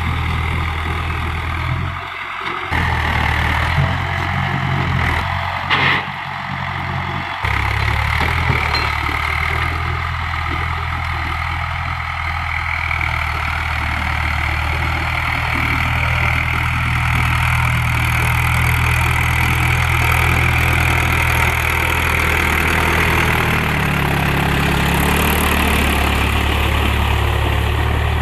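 Mahindra 415 DI tractor's diesel engine running steadily, as when pulling a plough. Its note wavers and shifts between about two and seven seconds in, then settles.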